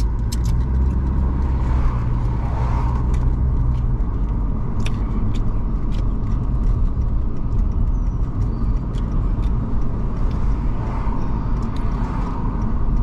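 Car driving, heard from inside the cabin: a steady low rumble of engine and road noise, with scattered small clicks and rattles.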